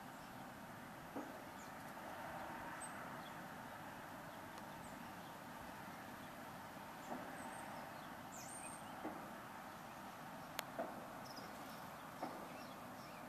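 Faint outdoor ambience: a steady low rush of background noise with a few faint high bird chirps and about six soft ticks or taps, two close together about ten and a half seconds in.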